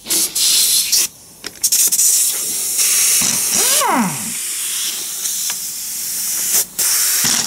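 Pneumatic impact wrench on an air line, hissing as its trigger is worked on the transfer-box bolts, with a falling whine about halfway through as the motor spins down. The hiss drops out briefly twice when the trigger is let go.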